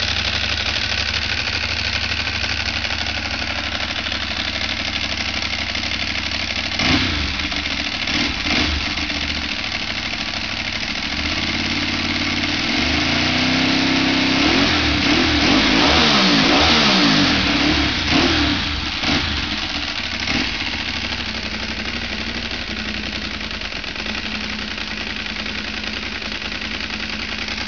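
Ducati 749's 90-degree V-twin engine, breathing through a full aftermarket exhaust, idling while it warms up. It takes two quick throttle blips, then a longer rev that climbs and falls back, then a few more short blips before it settles back to idle.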